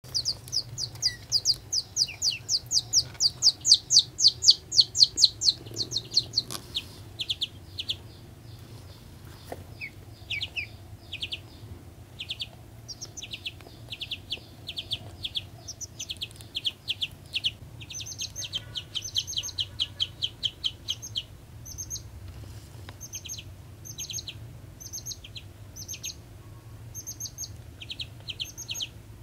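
Baby chick peeping: a fast run of loud, high, downward-sliding peeps for about the first six seconds, then shorter groups of peeps on and off.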